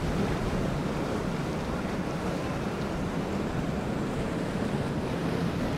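Outboard engines on a large center-console boat running at low speed, a low steady hum under the wash of water, with wind buffeting the microphone.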